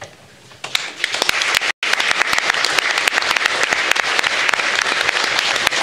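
Audience applauding: many people clapping. The clapping starts about a second in and holds steady, with a split-second dropout in the sound just before two seconds.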